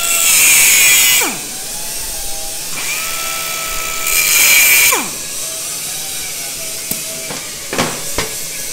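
Cutoff wheel whining at speed and cutting through a small tacked-in steel support bar on a motorcycle hardtail frame. There are two loud grinding passes into the metal, one in the first second and one about four seconds in, and a few sharp clicks near the end.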